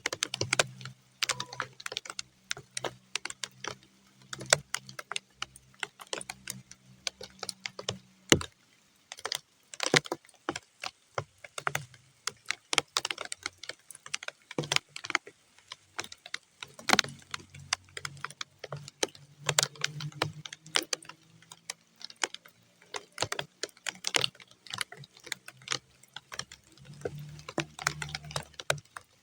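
Raindrops hitting muddy ground, heard as a steady scatter of separate, irregular sharp taps rather than a continuous hiss.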